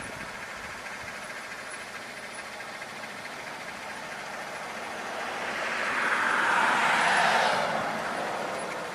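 A vehicle driving past, its noise swelling to a peak about seven seconds in and then fading, over a steady background of street noise.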